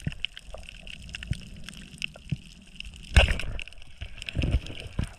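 Underwater sound through a dive camera's housing: a constant crackle of sharp clicks over a hiss, with muffled thumps and water movement. A louder rush of water comes about three seconds in, and more low surges follow near the end.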